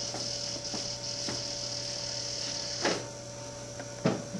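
Small wheeled robot's drive motors whirring with a high whine as it creeps forward, cutting out with a knock about three seconds in. A steady low hum runs underneath, and another knock comes near the end.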